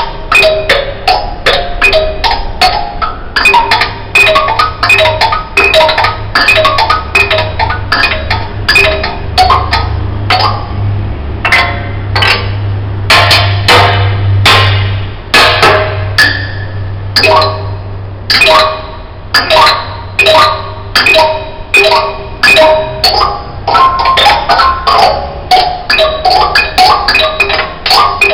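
Instrumental music of quick, struck, pitched notes, like mallet percussion, in a steady run. A low hum builds under it after a few seconds and fades out a little past the middle.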